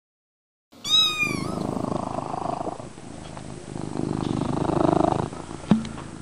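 A domestic cat gives one short meow, then purrs, the purr swelling and easing twice. A short tap near the end.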